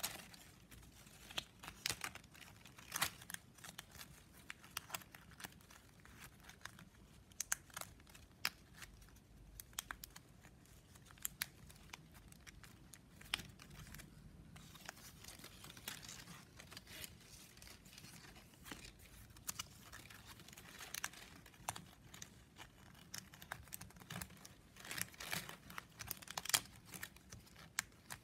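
9 mm plastic strapping band crinkling and clicking as it is bent, folded and threaded by hand while weaving: a faint, irregular run of sharp crackles and clicks.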